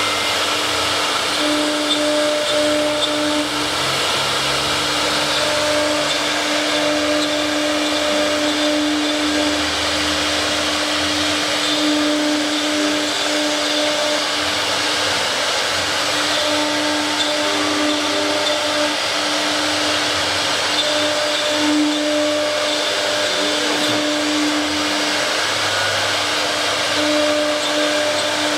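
Double-head CNC router running: a steady hum with a rushing noise over it. The hum drops out briefly and comes back every second or two.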